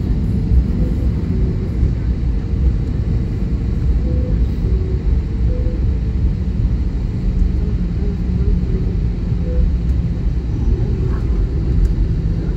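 Steady low rumble inside a jet airliner's cabin: engines and cabin air running, with a faint steady hum.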